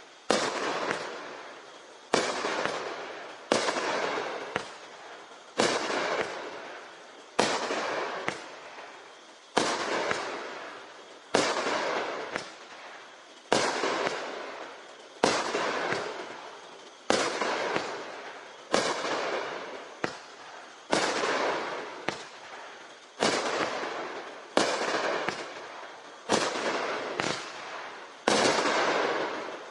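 Raccoon Night Raider 19-shot consumer fireworks cake firing: aerial shells burst one after another, about every one and a half to two seconds. Each is a sharp bang that trails off before the next.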